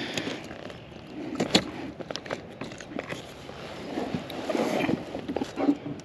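Scattered clicks, taps and rustling of a porgy being unhooked and handled in a kayak.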